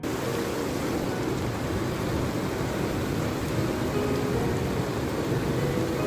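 Heavy rain pouring down onto wet, puddled ground: a dense, steady hiss of rainfall that starts abruptly.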